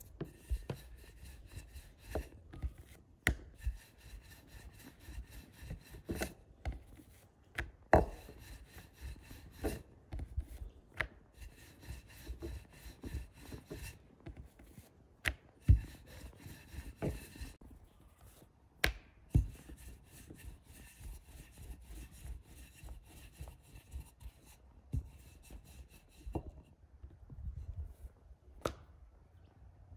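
Wooden rolling pin rolling dough out on a hard polished board, a repeated rasping rumble as it goes back and forth, broken by many sharp knocks of the pin against the board.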